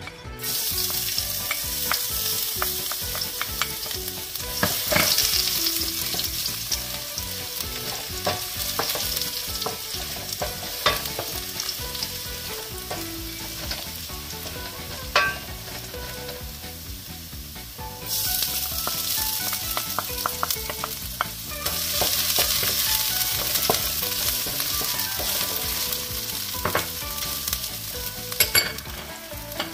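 Chopped garlic sizzling in hot oil in a stainless steel wok, the sizzle starting about half a second in as the garlic hits the pan. A wooden spatula scrapes and taps against the metal as the garlic is stirred.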